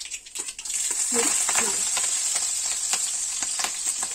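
Chopped green chilies hitting hot oil with mustard and cumin seeds in a kadhai. Under a second in, a steady sizzle starts, dotted with crackles.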